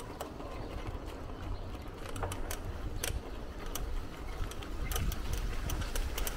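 Bicycle being ridden: a steady low rumble of tyres and wind, with scattered clicks and rattles from the drivetrain.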